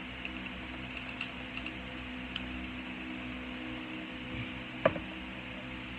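A metal teaspoon and the shaving-powder container being handled while powder is scooped: a few faint light clicks, then one sharp click about five seconds in. A steady low hum runs underneath.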